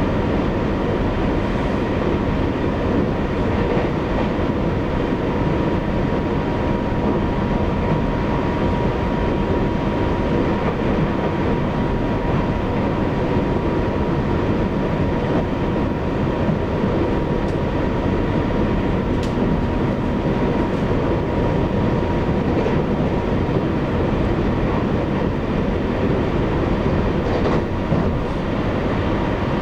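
EMU800 electric multiple unit running at speed, heard from inside the passenger car: a steady rumble of wheels on rail, with a thin steady whine that fades out about two-thirds of the way through and a few faint clicks near the end.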